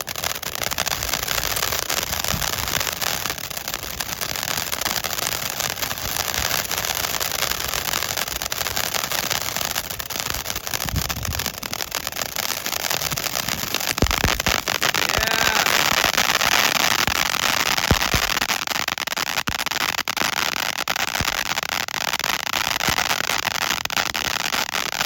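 Firework fountain spraying with a continuous hiss and dense crackling, a few low thumps, and growing a little louder partway through.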